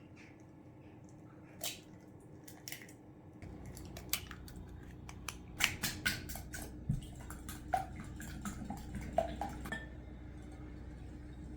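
Light clicks, taps and clinks of small objects being handled, a quick run of them through the middle. A faint steady low hum comes in about a third of the way through.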